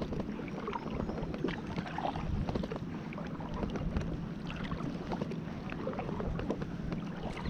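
Kayak paddle strokes: the blades dipping and pulling through calm river water with small irregular splashes and drips, over light wind on the microphone.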